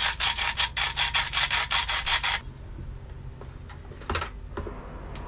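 Quick rhythmic rasping strokes of kitchen food preparation, about six a second, that stop about two and a half seconds in. A single sharp click follows about four seconds in.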